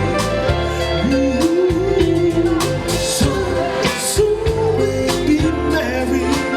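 Live soul band playing: drums, bass and guitar with a sung melody line over them.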